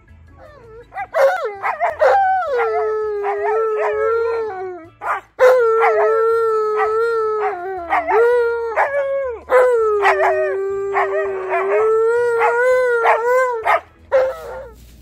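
An Alaskan Malamute and a second large dog howling together in long, held notes, starting with a few short choppy calls. The howling breaks off briefly about five and nine seconds in and stops just before the end.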